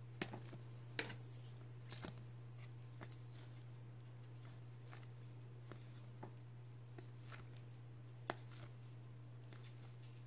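Hockey trading cards being flipped through one at a time in gloved hands: faint, scattered clicks and slides of card edges about once a second, over a steady low hum.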